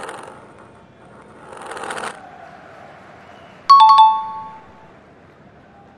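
Editing sound effects: a short swelling whoosh about a second and a half in, then a sudden, bright two-note chime, high then low, that rings out for about a second. It is a point-scored ding for a stat win.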